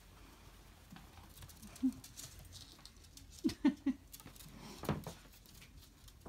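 A ferret dooking: a short clucking call about two seconds in, three quick clucks near the middle and one more about five seconds in. Underneath is the rustle and scrabble of the ferret burrowing through a pair of track pants on a wooden floor.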